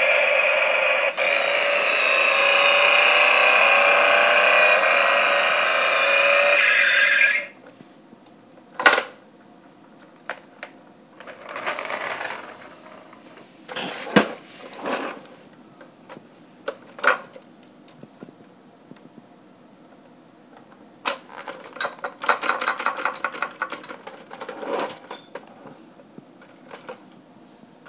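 Toy car's small built-in speaker playing a loud electronic engine sound effect for about the first seven seconds, then cutting off. After it come scattered plastic clicks and knocks from handling the toy, and a few seconds of rapid ticking from its small drive motor and gears.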